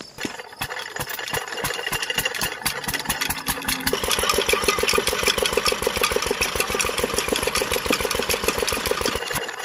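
Miniature diesel water-pump engine starting up and running with a fast, even chugging beat. About four seconds in it gets louder and fuller and settles into steady running.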